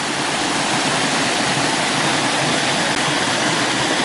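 Steady rush of a waterfall on a river.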